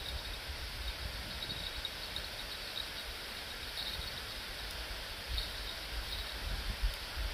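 Outdoor riverbank ambience: steady wind noise with gusts buffeting the microphone, and faint high chirps now and then.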